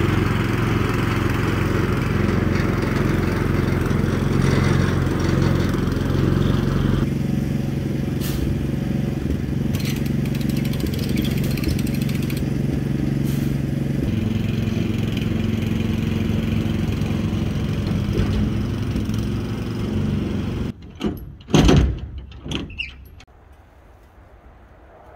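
Small gasoline engine running steadily, its tone shifting abruptly twice. It stops about 21 seconds in, followed by a few knocks.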